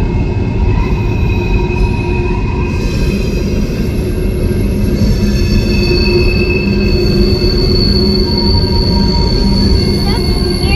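Empty coal hopper cars of a CSX freight train rolling into a rock tunnel. The steel wheels squeal against the rails in several steady, sustained tones over a continuous low rumble.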